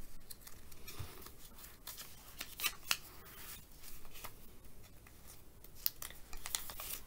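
A stack of paper sticky notes being shuffled by hand: soft paper rustling with scattered crisp snaps and flicks as the notes are handled and restacked.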